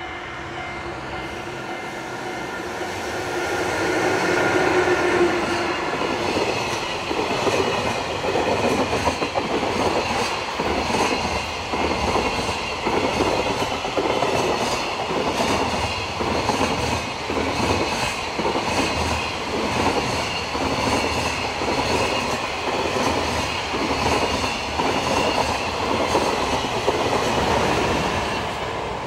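Electric locomotive-hauled container freight train passing close by. At first an electric locomotive's steady tones are heard, then a rhythmic clatter of wagon wheels over rail joints as the container wagons go past, easing off near the end.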